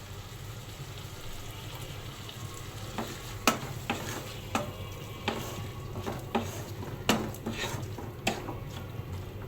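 Small shrimp frying in spice paste in a pan with a steady sizzle. From about three seconds in, a spatula stirs them, knocking and scraping against the pan about twice a second.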